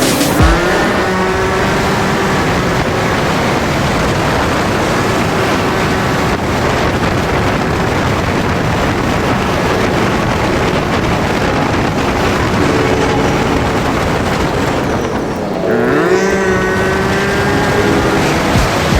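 A motor engine running under heavy steady noise, revving up briefly near the start and again near the end.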